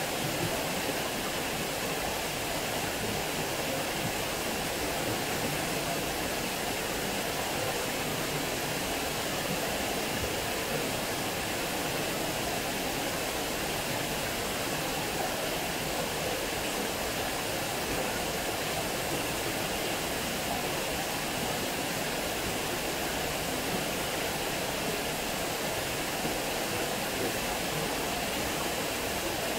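Water spilling over a small stone weir and splashing into the pool below: a steady, even rush of falling water.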